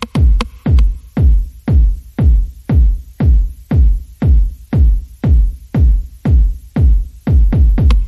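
Background electronic dance music driven by a heavy kick drum, about three deep thumps a second, each dropping in pitch.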